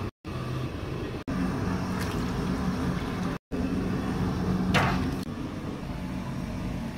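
Water sloshing and splashing as hands stir dye and work cloth in a bucket of dye water, over a steady low machine hum. The sound cuts out abruptly twice.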